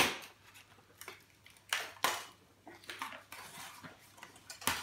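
Laptop casing and parts being handled during disassembly: a sharp knock at the start, then several lighter clicks and knocks of hard parts against each other and the work surface.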